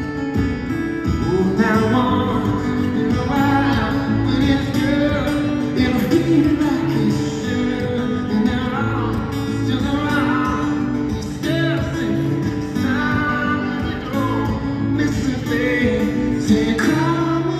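Solo acoustic guitar strummed and picked with a man singing over it from about two seconds in, amplified through a large arena's sound system.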